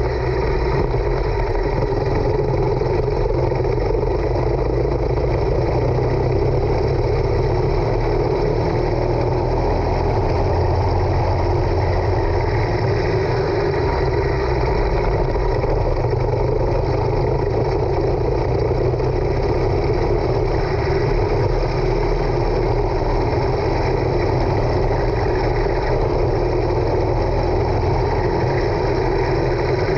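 Racing kart engine running at speed, heard from a camera mounted on the kart itself, its note fairly steady with no pauses.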